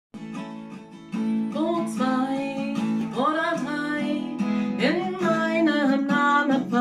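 Steel-string acoustic guitar with a capo being strummed, starting softly and getting louder about a second in, joined about a second and a half in by a woman singing in German over it.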